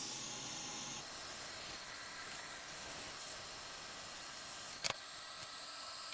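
Steady airflow hiss from a hot air rework station heating a small surface-mount fuse on a graphics card board to desolder it. A single short click sounds about five seconds in.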